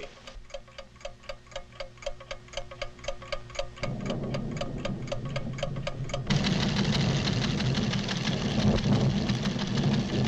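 Cartoon seismograph ticking steadily, about five ticks a second, as its pen traces a tremor. A low rumble comes in about four seconds in and swells louder a couple of seconds later, drowning out the ticks.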